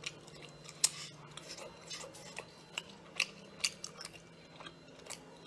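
A person chewing sea snail meat close to the microphone, with scattered soft wet mouth clicks and smacks; the sharpest comes about a second in.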